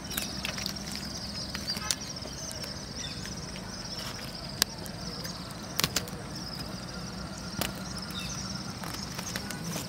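Insects chirring steadily in a high, even drone, broken by a few sharp clicks, the loudest about four and a half and six seconds in.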